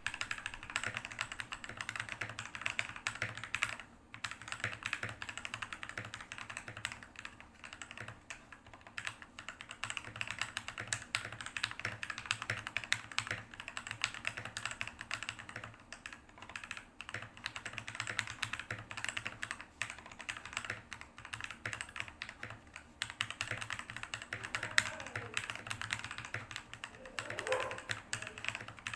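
Continuous fast typing on a Magegee MK-Mini mechanical keyboard fitted with lubed Jixian red linear switches, a foam mod and tape-modded stabilizers, with a few brief pauses.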